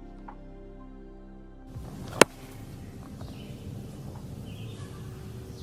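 Calm ambient background music with sustained tones, which cuts off about two seconds in. Outdoor background noise follows, with one sharp click just after the cut.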